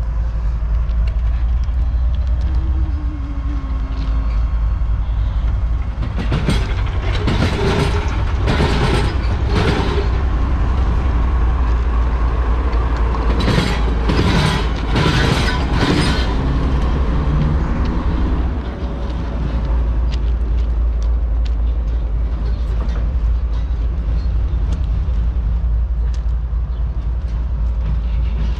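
A Ferromex diesel locomotive rolls past with its engine running low and steady. Its wheels clank over the gaps of a railroad diamond crossing in two quick series of knocks, about six seconds in and again around the middle.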